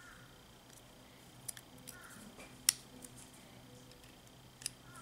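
A few sharp, light clicks and taps of small metal parts as a partly disassembled OS FS-61 model four-stroke engine is handled and turned over. The sharpest click comes about two and a half seconds in.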